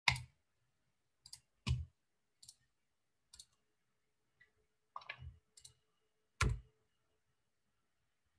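Scattered clicks and knocks from a computer mouse and desk being handled, about nine of them at irregular intervals, several with a dull thump.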